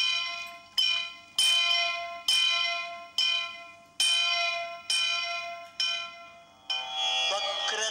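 A bell struck eight times, a little under a second apart, each stroke ringing and fading away; near the end sustained instrumental music comes in.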